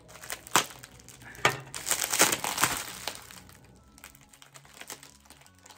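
Packing wrap crinkling and rustling as a tightly wrapped item is pulled open by hand, with a few sharp crackles and a busier stretch about two seconds in, then quieter rustling.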